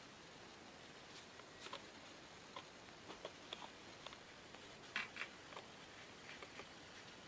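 Faint, scattered clicks and taps of fishing rods being handled as one is drawn out from the others and raised, with the loudest pair about five seconds in, over a low hiss.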